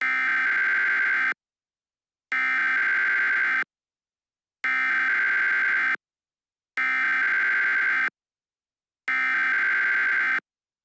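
Emergency Alert System-style electronic alert tone, sounding in five identical steady bursts of about a second and a quarter, each followed by a second of silence.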